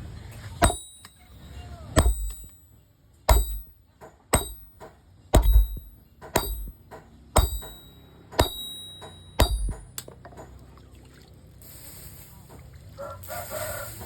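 Blacksmith's hammer striking hot metal on an anvil, roughly once a second with some quick double blows. Each blow rings with a high metallic tone. The hammering stops about ten seconds in.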